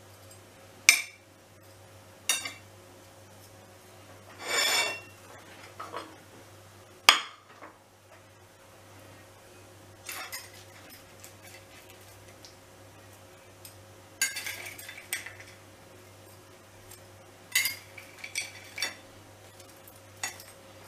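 Metal kitchen tongs clicking and clinking against ceramic plates and each other while picking up steak slices and french fries and laying them into a bread roll: scattered sharp clinks, a short scrape about four seconds in, and quick runs of clinks later on.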